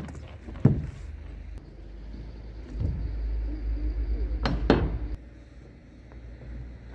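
Sharp knocks on a plywood roof deck: one about a second in, then two in quick succession past the middle. Under them runs a low rumble that swells for a couple of seconds in the middle.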